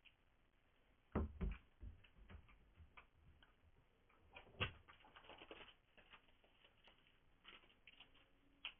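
Quiet, scattered clicks and light knocks: three close together about a second in, a sharper one near the middle followed by a run of small ticks, and a few more near the end.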